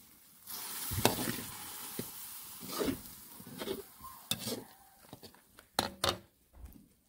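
Chopped tomatoes frying in oil in a metal wok, stirred with a slotted metal spoon. A loud sizzle starts suddenly about half a second in and fades over the next few seconds, with the spoon scraping and knocking against the pan several times.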